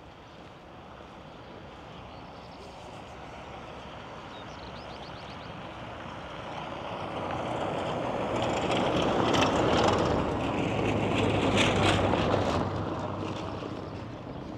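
A motor vehicle passing close by on the street. Its noise builds slowly, is loudest about two-thirds of the way through with some rattling, then fades away.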